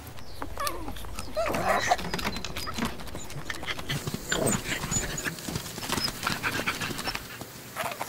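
Pugs making short dog calls, several separate ones that bend up and down in pitch, with small snuffling clicks in between.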